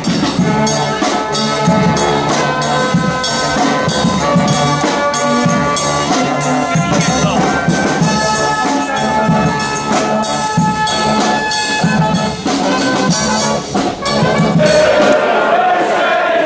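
A street brass band of trumpets, trombones and saxophones plays a tune over snare and bass drums with cymbal. Near the end the band gives way to a crowd of football fans chanting.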